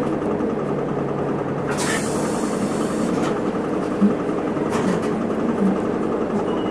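Isuzu Erga city bus's diesel engine idling steadily, heard from on board, with a short hiss of air about two seconds in.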